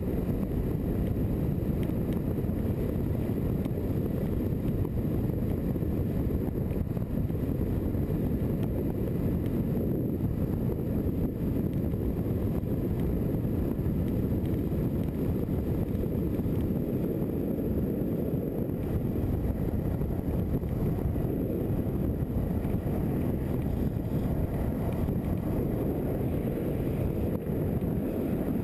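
Steady low rush of wind buffeting the camera microphone, together with longboard wheels rolling over asphalt at high speed.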